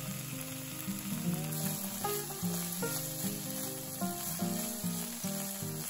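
Julienned burdock root and carrot sizzling as they sauté in sesame oil in a frying pan, with a hiss that grows about a second and a half in. A background melody of short notes plays throughout.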